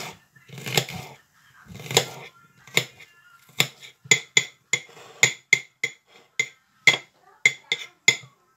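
Kitchen knife chopping onion on a plate: a run of strikes of the blade on the plate. They come about once a second at first, then quicker and sharper, about three a second, with a short ring after each clink.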